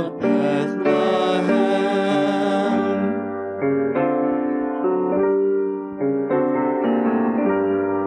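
A mixed vocal quartet sings a Christmas song over piano accompaniment. The voices end about three seconds in, and the piano carries on alone with slow, held chords.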